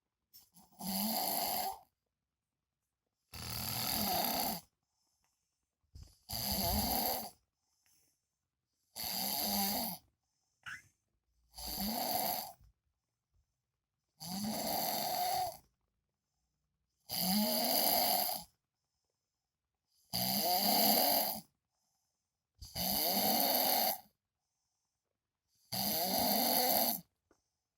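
A man snoring in his sleep: a snore about every two and a half seconds, each lasting about a second, with silence between breaths.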